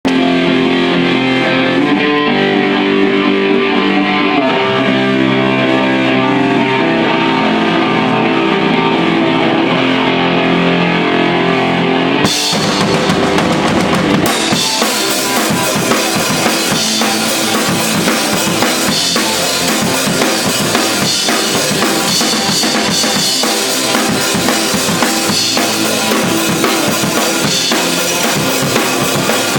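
A band playing live: a pitched instrumental intro with little treble, then the full band with drums comes in about twelve seconds in, much brighter, with steady beats and cymbals.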